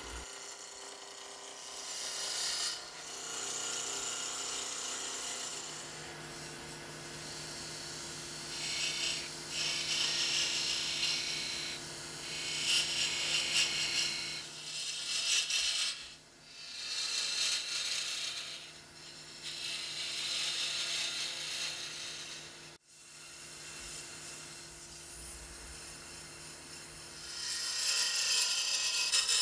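Wood lathe running with a steady motor hum while a turning tool cuts into a spinning exotic-wood spindle blank, the scraping of the cut rising and falling with each pass. The sound cuts out for an instant about three-quarters of the way through.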